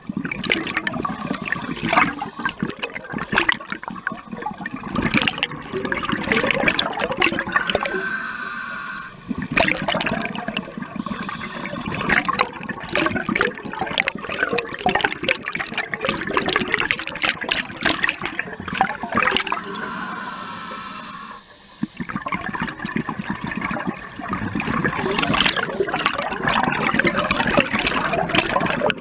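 Scuba regulator exhaust bubbles gurgling and rushing as a diver breathes out underwater, in long runs broken by two brief pauses for breathing in.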